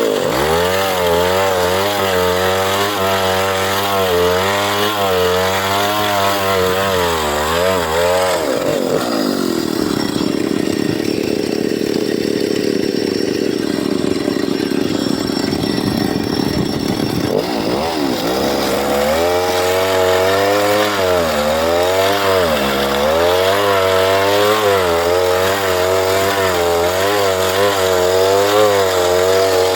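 Chainsaw running at high speed with a wavering pitch. For about ten seconds in the middle the pitch drops and the sound turns rougher, as when the chain is cutting into wood, then it climbs back up.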